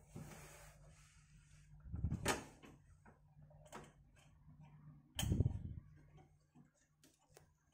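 Handling knocks and light clicks as a hard disk is fitted into the drive bay of a PC cabinet, with two louder knocks about two and five seconds in.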